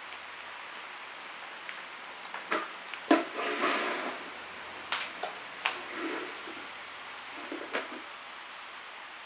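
Several sharp knocks and clatters with short stretches of rustling, from about two and a half to eight seconds in, the loudest just after three seconds, as an electric stand fan is handled and set down, over a steady hiss.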